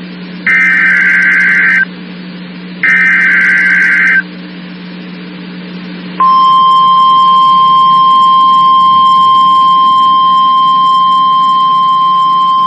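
NOAA Weather Radio weekly test signalling: two data bursts of the SAME (Specific Area Message Encoding) header, each a screeching warble lasting about a second and a half, with a low hum in the gaps. About six seconds in, a steady 1050 Hz warning alarm tone starts and holds.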